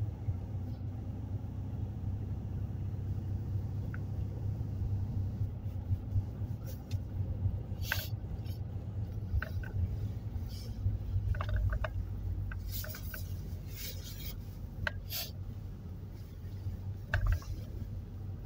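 Steady low rumble of a car driving, with scattered short clicks and ticks, most of them in the middle of the stretch.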